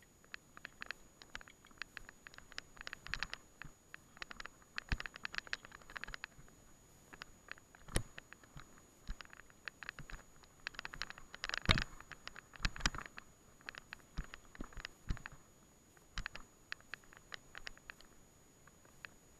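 Mountain bike ridden over rough hill grass: irregular clusters of clicking and rattling from the bike and its mounted camera, with a few harder knocks about eight and twelve seconds in.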